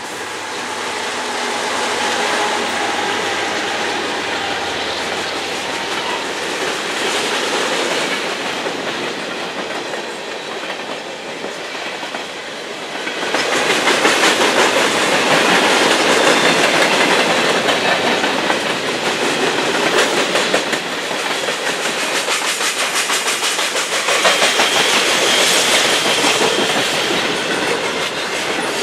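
Two GE diesel-electric locomotives, a C44-9W and an ES44DC, run past, followed by a long string of freight cars rolling by. From about halfway in the sound gets louder, with the steady clickety-clack of freight-car wheels over the rail joints.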